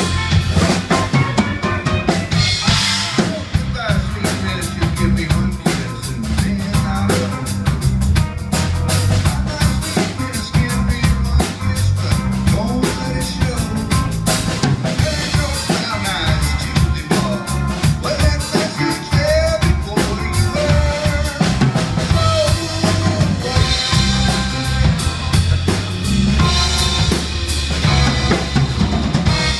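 Rock band music with a busy drum kit prominent: snare, rimshots and bass drum over guitar.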